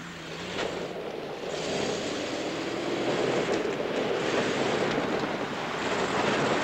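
Jeep CJ driving over a rough dirt track: engine running under the rush of tyres on dirt and stones, growing louder over the first few seconds.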